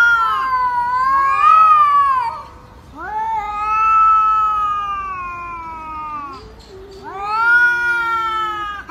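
Two domestic cats caterwauling at each other in a face-off: long, wavering yowls, three drawn-out calls of a few seconds each, with the voices overlapping at times. This is the warning yowl of a territorial standoff between cats.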